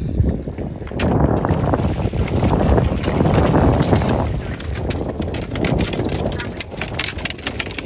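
Wind rumbling and buffeting against the microphone, swelling and easing, with scattered sharp crackles throughout.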